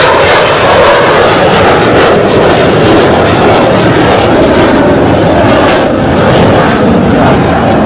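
Fixed-wing aircraft flying over, its engine noise loud and steady.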